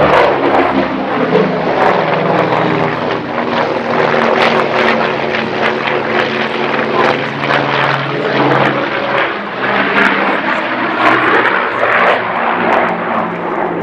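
Grumman F7F Tigercat's twin Pratt & Whitney R-2800 radial engines and propellers running at high power through an aerobatic climb, roll and dive. The engine note shifts in pitch as the aircraft manoeuvres.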